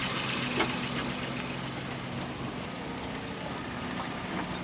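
Car engine idling steadily, with a short click about half a second in.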